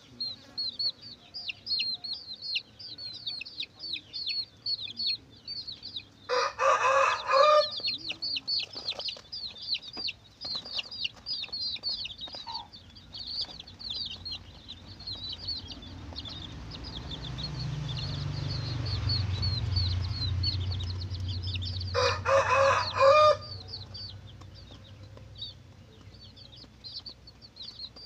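Domestic chicks peeping without pause, many short high cheeps a second. Twice, once about six seconds in and again past the twenty-second mark, a chicken gives a loud call lasting a little over a second. A low rumble swells and fades in the middle.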